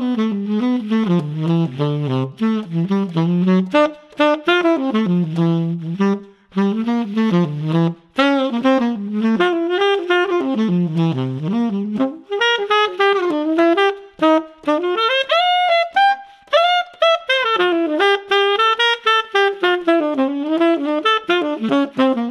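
Tenor saxophone with a Boston Sax Shop E-Series hard rubber mouthpiece, played unaccompanied in a jazz line. The phrases sit in the low register at first and climb higher about halfway through.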